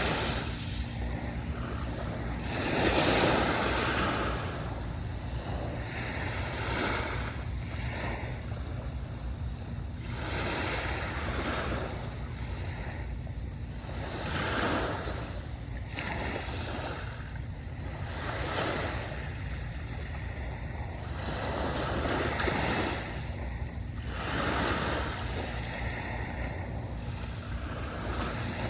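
Waves breaking and washing up a sandy beach, one after another every few seconds, the loudest about three seconds in, over a steady low rumble.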